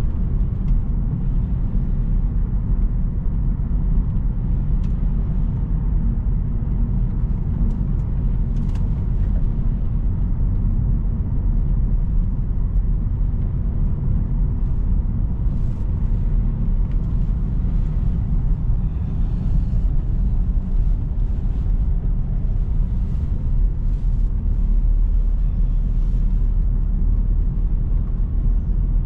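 Car driving on a snowy road: a steady, low rumble of engine and tyre noise, with faint scattered ticks over it.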